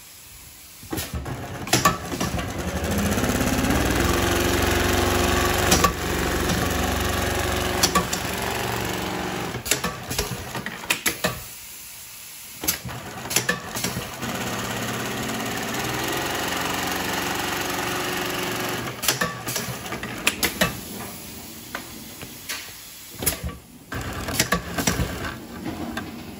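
Pfaff long-arm industrial sewing machine stitching heavy orange webbing. It speeds up and runs steadily, stops briefly about halfway, then runs again, with sharp clicks between the runs.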